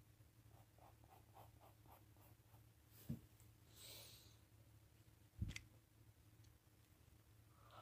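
Faint pencil scratching on paper, about four short strokes a second for the first couple of seconds. Then two sharp knocks about two seconds apart, with a brief hiss between them.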